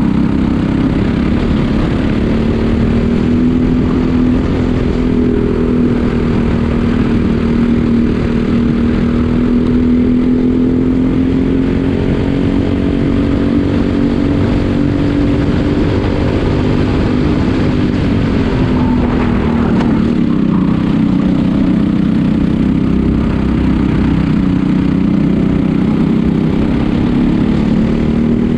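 Briggs & Stratton LO206 single-cylinder four-stroke kart engine at race pace, heard on board. Its pitch climbs slowly along the straight, drops once about two-thirds of the way through as the kart slows for a corner, then climbs again near the end.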